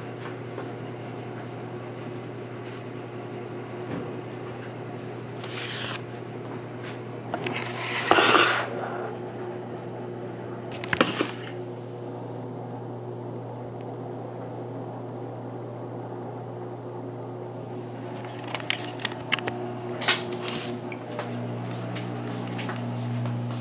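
Handling noise as the camera is picked up and moved: scattered knocks, rubs and clatters, loudest about eight and eleven seconds in and again in a cluster near twenty seconds, over a steady low hum.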